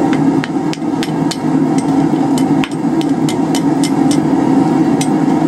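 Hammer blows on a hot quarter-inch round steel bar, bending it over the horn of an anvil into a hook. The blows are light, sharp and uneven, about three a second, over a steady low hum.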